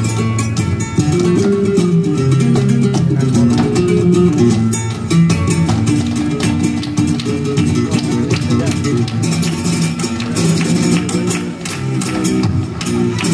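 Flamenco guitar playing over a dense run of sharp percussive strikes from palmas (rhythmic hand clapping) and a dancer's footwork.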